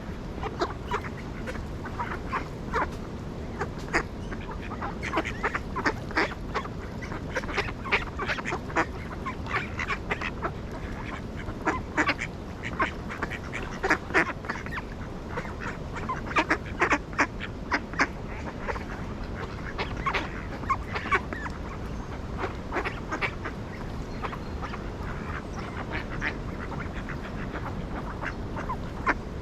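Ducks quacking: many short calls, often in quick runs, over a steady low background noise.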